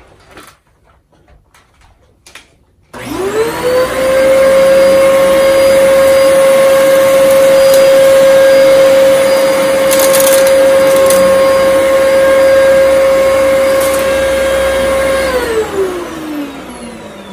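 Dyson DC14 bagless upright vacuum cleaner switched on about three seconds in. Its motor spins up quickly to a loud, steady high whine and runs through a dirt-pickup pass, with a few brief sharp ticks midway. Near the end it is switched off and winds down with a falling whine.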